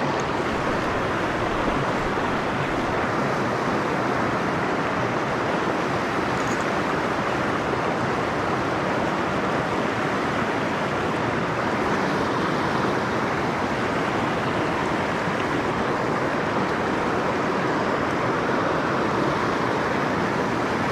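River rapids rushing over stones close to the microphone: a steady, even rush of white water.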